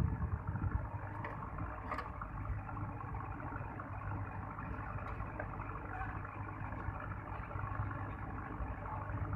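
Steady low rumble of running machinery, with a couple of faint clicks about one and two seconds in.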